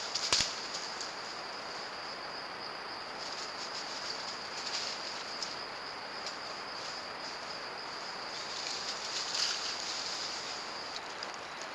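Insects chirping in a steady high-pitched chorus that swells and fades, over a constant hiss. A single sharp click about half a second in.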